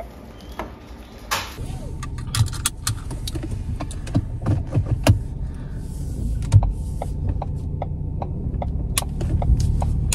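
Inside a car: a low, steady engine and road rumble with a string of sharp clicks, irregular at first and then evenly spaced at about two to three a second.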